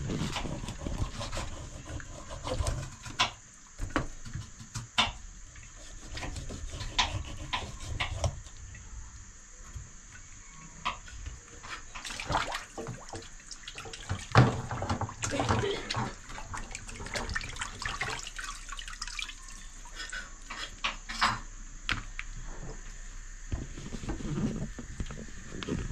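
Fish being scaled and washed with a knife in a basin of water in a stainless steel sink: splashing and scraping, with irregular clicks and knocks of the knife and fish against the metal.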